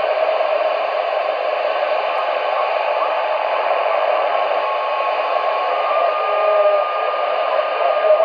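CRT SS 9900 CB radio's external speaker giving a steady, loud static hiss on channel 19 AM, with faint whistling tones in the noise. The long-distance station being received is fading into the noise.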